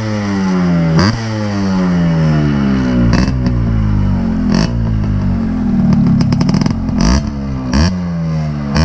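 Yamaha RX135 two-stroke single-cylinder engine, fitted with a catalytic-type silencer whose internals have been altered for more sound, revved in repeated throttle blips: each rev rises sharply and falls away, with a quick flutter of short blips about six seconds in.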